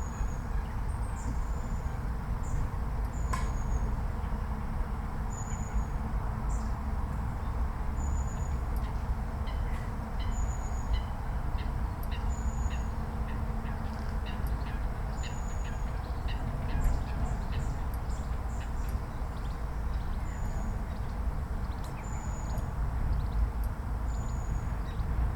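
A songbird's high, thin note, short and slightly falling, repeated every one to three seconds over a steady low rumble; from about nine to seventeen seconds in, a run of faint quick ticking calls joins it.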